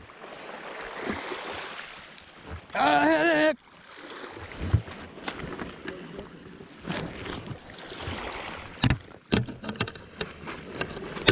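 Water sloshing around a kayak, with scattered knocks on the hull. About three seconds in, a loud wavering tone sounds briefly.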